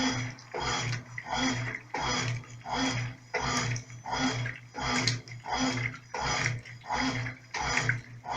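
Brastemp Clean 5 kg top-loading washing machine agitating a load of clothes on its gentle delicate setting, in the initial agitation of the soak cycle. The agitator swishes the water back and forth in even strokes, a little under two a second, each with a motor hum.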